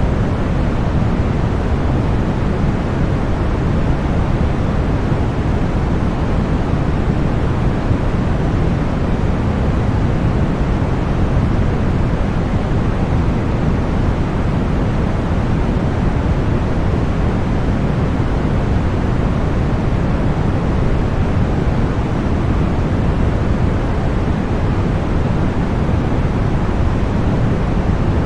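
Continuous generated white noise: a steady, unchanging hiss with most of its weight in the low end.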